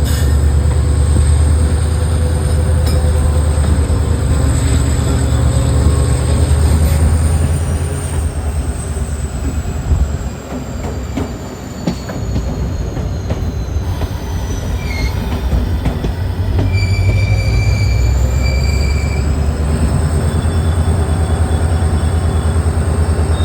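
WDP4D diesel locomotive's two-stroke EMD engine rumbling steadily just ahead, with the coaches running over the rails and wheels squealing. The rumble eases briefly about ten seconds in, then comes back.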